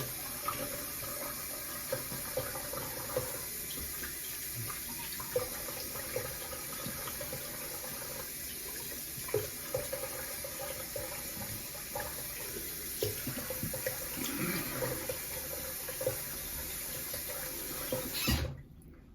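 Bathroom sink tap running steadily while a face is rinsed after a shave, with intermittent splashes of water. The tap is shut off abruptly near the end.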